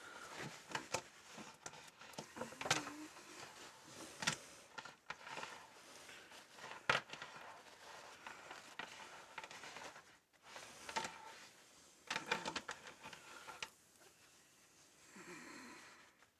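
A saw chain being wiped with paper: irregular paper rustling and sharp clicks of the chain's links, in short spells with brief pauses.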